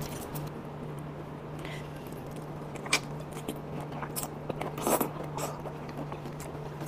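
Close-miked eating sounds: a shrimp shell being peeled, then biting and chewing of shrimp meat, with scattered wet clicks and mouth smacks, the sharpest about three and five seconds in. A steady low hum lies underneath.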